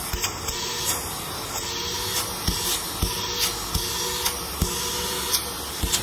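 KYK wet/dry shop vacuum running, air rushing into the hose with a steady motor whine underneath. A few short knocks come from the hose being handled.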